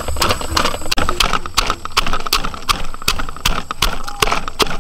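Wooden pestle pounding in a clay mortar, crushing red chillies and long beans: a quick, irregular run of knocks.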